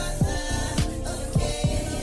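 Background music with a steady beat and deep bass hits that slide down in pitch.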